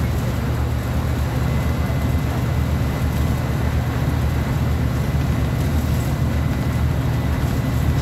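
Diesel engine of a Volkswagen 17.230 OD city bus running steadily, a constant low, even sound with no change in speed, and a thin high whine held over most of it.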